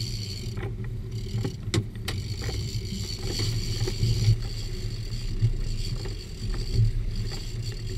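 Sport-fishing boat's engine running steadily under way, with water noise and a few sharp knocks in the first couple of seconds.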